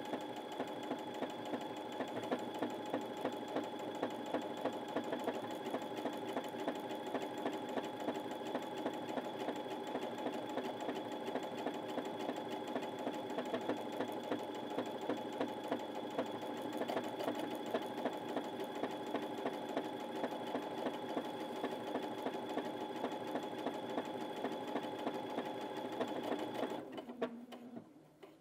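Brother Innov-is A65 computerised sewing machine stitching a one-step buttonhole at about mid speed: a steady motor hum with a rapid, even patter of needle strokes. It stops about a second before the end.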